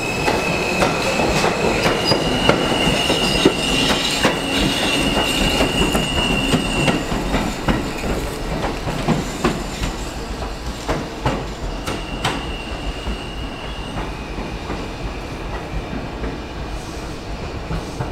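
R160A subway train pulling out and moving away, its wheels squealing in a steady high tone and clicking over the rail joints. The squeal fades after about seven seconds and returns around twelve seconds in, while the whole sound slowly dies away.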